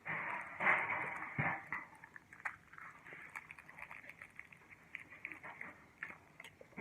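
LEGO pieces being handled: a rustling, rummaging stretch for the first second or two, then scattered small plastic clicks.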